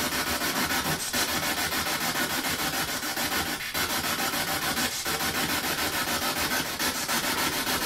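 Spirit box (ghost box) sweeping through radio frequencies: continuous static chopped into a rapid, even pulse, with a few brief breaks, played back so that spirit voices can be listened for in it.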